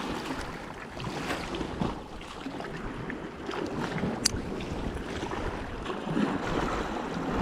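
Sea water washing and sloshing among concrete tetrapod breakwater blocks, with wind on the microphone and a few small clicks.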